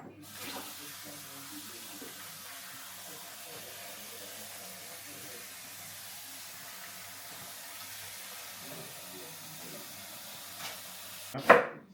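Kitchen tap running a steady stream of water into the sink, stopping suddenly near the end.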